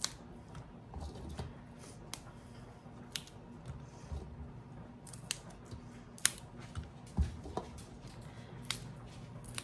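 Fresh green beans snapped by hand, a sharp crisp snap coming irregularly about once a second.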